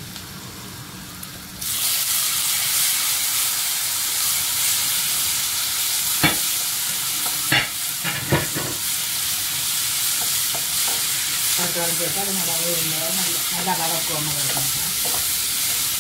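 Onions, green chillies, garlic and curry leaves sizzling in hot oil in a nonstick pan while a wooden spatula stirs them. The sizzle gets louder about two seconds in, and the spatula knocks against the pan a few times around six to eight seconds.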